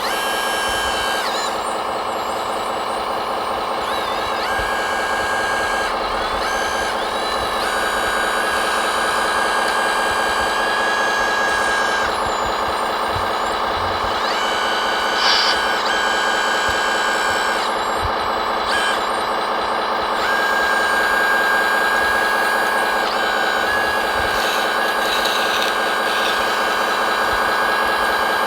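Radio-controlled scale trucks and construction machines running steadily, with a dense engine drone and a high steady tone that drops out and comes back several times. There is a brief higher-pitched burst about halfway through.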